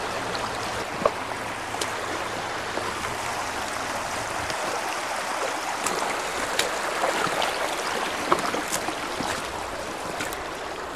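Shallow creek water running over rocks, a steady rushing, with a few light clicks and snaps scattered through it.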